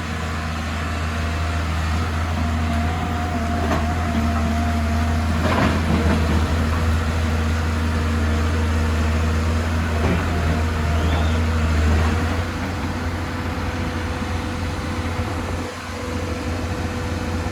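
Excavator's diesel engine running steadily under working load, with a higher whine over the low drone. There are a couple of short knocks, about five and ten seconds in.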